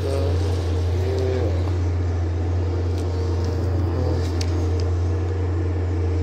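Steady low rumble of an idling vehicle engine, with a few faint clicks in the middle.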